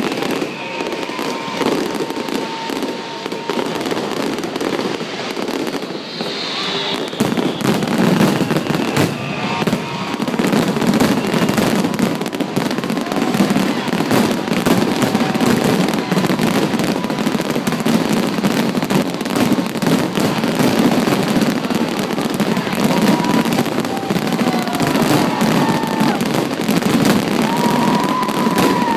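Fireworks display: a dense, continuous run of bangs and crackling aerial bursts, growing louder about seven seconds in.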